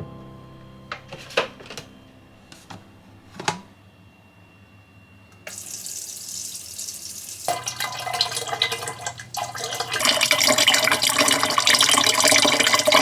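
Water running, starting faintly about five seconds in and growing steadily louder, after a few light knocks.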